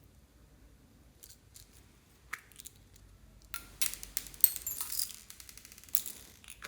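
Clear slime being handled: a few scattered sticky clicks, then a dense run of crackling pops and clicks from about three and a half seconds in, with one more burst near the end.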